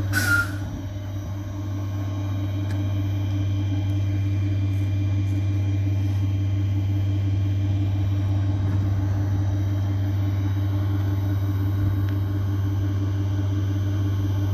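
Regional train: a short, loud high-pitched squeal right at the start, then a steady low rumble and hum of the train running.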